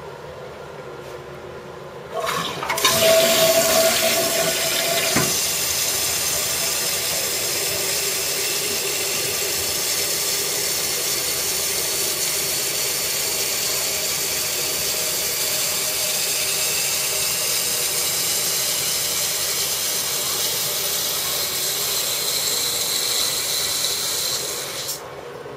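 Toilet cistern with a dual-flush retrofit valve doing a water-saving half flush. A click about two seconds in, then a loud rush of water for about three seconds, then a steady rush of the tank refilling that stops near the end.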